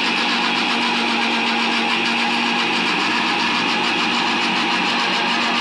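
Electric countertop jug blender running steadily, its motor holding one even hum while it whips cream in the jar.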